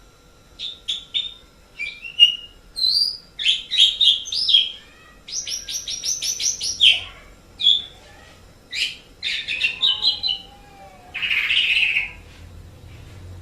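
Pied starling (jalak suren) singing a varied song of short chirps and whistled notes. About six seconds in there is a fast run of clicking notes, and near the end a harsh, scratchy call.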